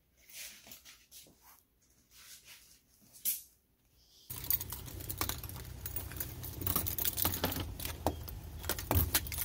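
Soft scuffs of sandals on a wooden floor, then, from about four seconds in, a louder background with quick clicks and rattles of keys and a brass doorknob and lock being worked.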